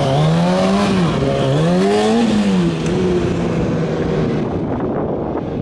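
Motorcycle engine revving up and down twice as the rider holds a wheelie, then running at a steadier pitch and fading out as the bike moves away.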